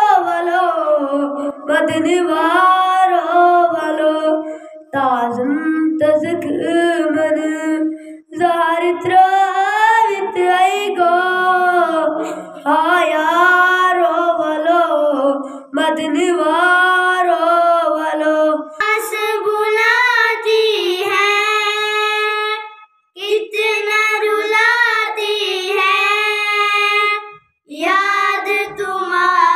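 A boy singing solo and unaccompanied, in sung phrases a few seconds long with short pauses for breath between them.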